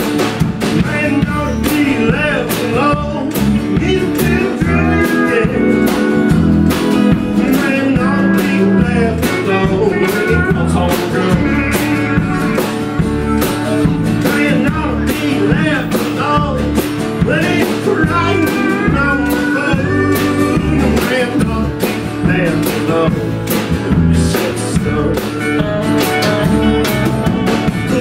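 Live country-blues band playing an instrumental passage with pedal steel guitar, harmonica, electric bass, acoustic guitar and drums, over a steady drum beat.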